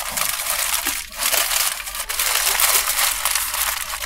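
Paper sandwich wrapper crinkling and crumpling as it is handled close to the microphone, with a short lull about a second in.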